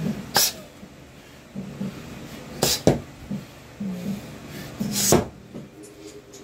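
Gloved punches striking a hanging punching bag: four sharp smacks, two of them in quick succession near the middle.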